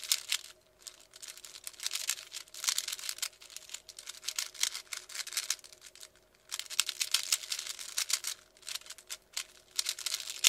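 3x3 Rubik's cube being turned quickly by hand: plastic layers clicking and rattling in rapid runs, with brief pauses about a second in and around six seconds, while the middle layer is being solved.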